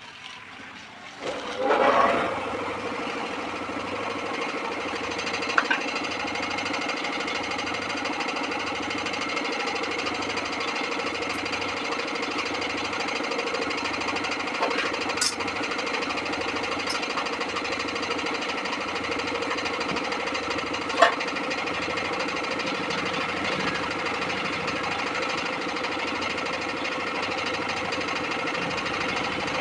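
A small machine's motor starts about a second and a half in and runs steadily with a slow low pulsing, broken by a few sharp clicks.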